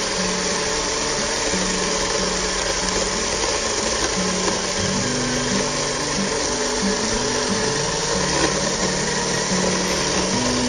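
Battery-powered 6-inch mini chainsaw running steadily as its chain cuts through a log.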